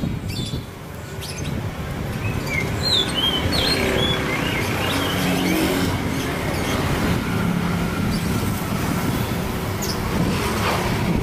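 Oriental magpie-robin (kacer) singing a string of short rising and falling whistled notes, mostly in the first half, over a steady noisy background like traffic with a low hum.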